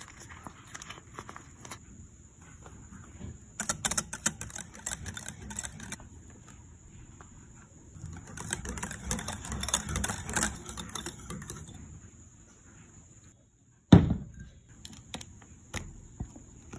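Wire whisk beating cream in a glass bowl: rapid clicking and scraping of the wires against the glass, in two spells about four and about nine seconds in. One loud knock near the end.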